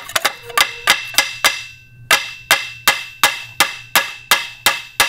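Ball-peen hammer tapping a steel Woodruff key down into the keyway of an outboard drive shaft, seating the key until it bottoms out. A steady run of light metal-on-metal taps, about three a second with a short pause near two seconds in, each tap leaving a brief ring.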